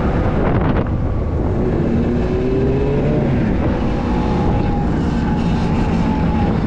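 Riding noise on a Sur-Ron electric dirt bike: heavy wind rumble on the microphone with a steady hum, and a tone that rises in pitch about two to three seconds in.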